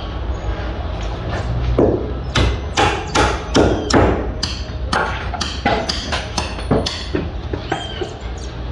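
Construction-site hammering: a run of sharp hammer blows, irregular at about two or three a second and coming thicker after about two seconds, over a steady low hum.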